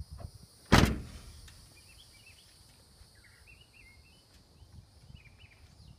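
A car door shutting with one loud thud a little under a second in, then faint birds chirping over a steady, faint high-pitched outdoor hiss.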